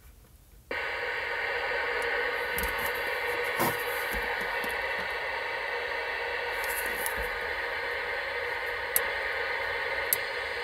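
Cobra 19 Ultra III CB radio's speaker hissing with steady static. The static cuts in suddenly under a second in, as the squelch is opened on an empty channel. A couple of sharp clicks come near the end as the channel is switched from 2 to 3.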